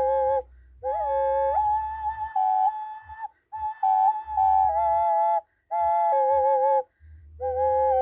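A 7-hole double ocarina playing two notes at once: a mostly held lower note under a stepping upper melody. It goes in short phrases broken by brief pauses for breath, with a quick upward slide about a second in.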